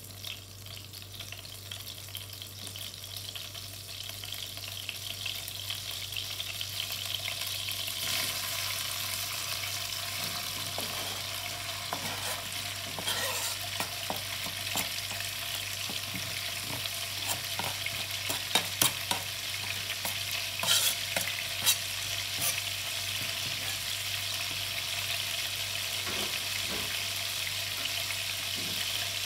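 Butter sizzling in a nonstick frying pan. It gets louder about 8 s in, as sliced onions and diced sausage and ham go into the hot butter. Scattered sharp clicks from about 12 to 22 s come from a utensil stirring against the pan.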